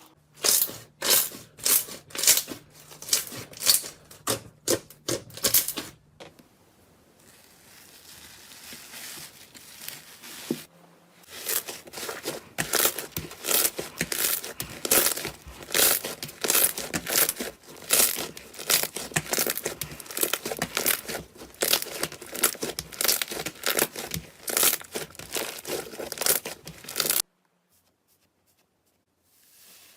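Slime being squeezed and worked by hand, crackling and popping in quick runs of sharp snaps, with a softer stretch in between; it stops abruptly a few seconds before the end.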